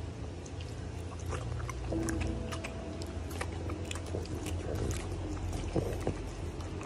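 French bulldog licking and smacking its lips: irregular small wet clicks over a low steady hum.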